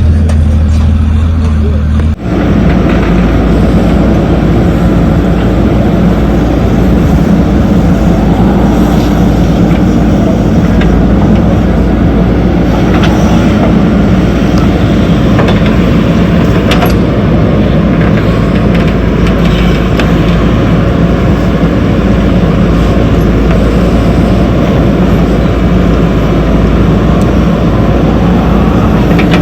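Heavy diesel earthmoving machinery running steadily with a dense, loud engine sound. The sound changes abruptly about two seconds in, from a lower steady hum.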